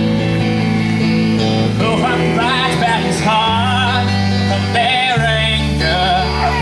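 Live amateur band: acoustic guitar and electric bass play under a male singer. His held, wavering notes come in about two seconds in, over bass notes that change every second or so.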